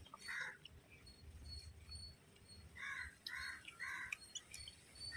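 Crows cawing: one caw near the start, then three caws in quick succession about three seconds in, over faint, evenly repeated high chirps.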